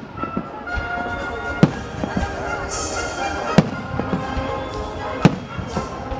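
Fireworks shells bursting overhead: three loud bangs about two seconds apart, with smaller pops between them. Music plays steadily underneath.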